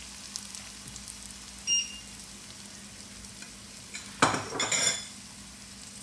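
Beaten eggs frying in hot oil in a wok, a steady sizzle. A little past four seconds in comes a short knock and clatter, the loudest sound.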